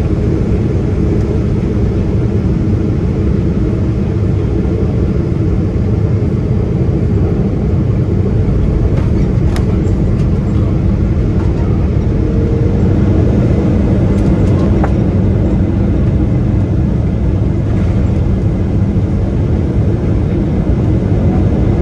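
Boeing 777-200 engines and airflow heard from inside the cabin during landing: a steady, loud rush with a few faint knocks around touchdown about nine seconds in. From about twelve seconds the rush grows a little louder as the Rolls-Royce Trent 800 engines go into reverse thrust on the rollout.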